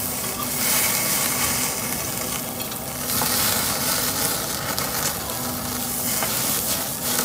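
Meat sizzling on a tabletop gas yakiniku grill, with dripping fat flaring up in the burner flames. The hiss swells and fades several times.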